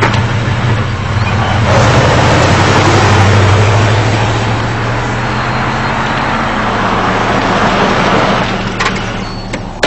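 Car engine running just after being started, louder about two seconds in, then fading near the end.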